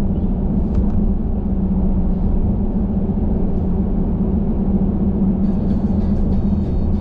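Steady low rumble and road noise of a car being driven, with an even drone. Faint music comes in near the end.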